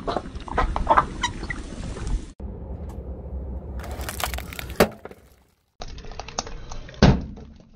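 Car tyre rolling over rubbery spiky puffer-ball toys, squeaking and crunching with sharp clicks, then rolling onto an inflated foil flamingo balloon with crinkling foil and sharp cracks. The loudest crack comes about seven seconds in.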